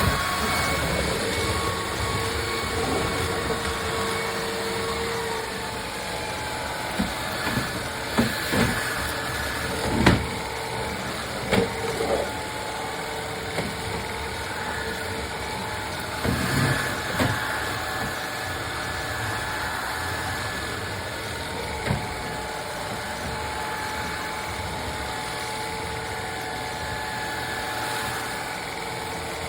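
Cordless stick vacuum motor running with a steady whine, its pitch shifting in the first few seconds, and a few knocks and clacks as it is handled and pushed about.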